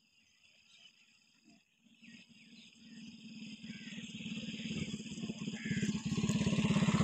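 Motorcycle engine approaching, its rapid even firing pulses growing steadily louder from about three seconds in. A faint steady high insect buzz sits under it.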